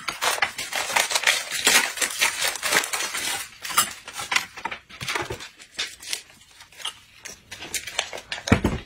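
Crisp, flaky flatbread crackling and crunching as it is torn apart by hand: dense crackling for the first few seconds, then sparser. A single thump near the end.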